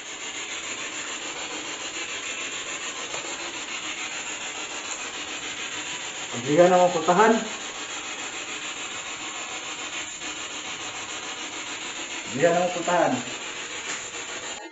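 P-SB7 Spirit Box sweeping through radio stations: a steady hiss of static, broken twice by short voice-like fragments about six and twelve seconds in. The investigators take these fragments for spirit words.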